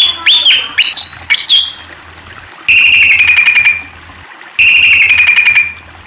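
Malaysian pied fantail singing: a few quick, squeaky notes that swoop up and down, then two rapid trills of even notes, each lasting about a second and a half.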